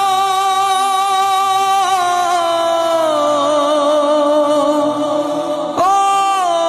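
A voice singing a Bengali Islamic gojol with no instruments heard, drawing out one long held 'o' that slides down in pitch twice, then starting a new held note near the end.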